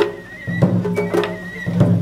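Japanese festival music (matsuri bayashi): drums struck several times in an uneven pattern under a high, held melody line that slides slightly in pitch.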